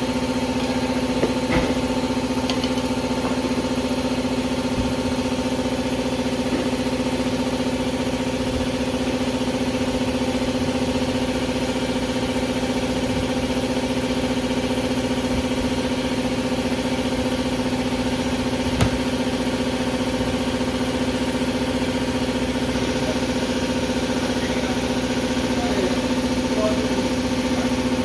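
A machine running steadily, a constant hum that never changes pitch, with a few light clicks and one sharp knock about nineteen seconds in.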